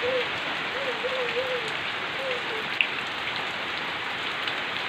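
Steady rain falling, an even dense hiss with scattered drip ticks and one sharper tick near the middle. A faint wavering voice sounds through the rain during the first half.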